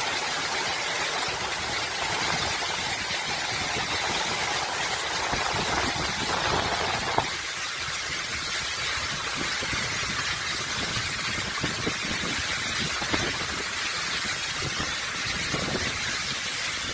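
Tropical-storm wind and heavy rain: a steady rush of noise, with gusts buffeting the microphone in an uneven low rumble. About seven seconds in, the low rumble eases and the rush of rain and wind stays.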